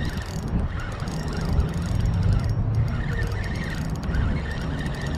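Fishing reel being cranked steadily, retrieving a hooked fish, over a steady low rumble.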